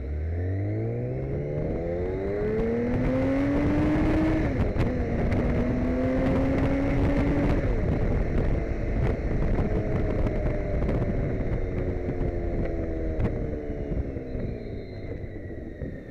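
BMW K1600 GT motorcycle's inline six-cylinder engine accelerating: its note climbs, drops at a gear change about four seconds in and climbs again. It then settles and slowly falls as the rider eases off toward the end, over wind and road rush.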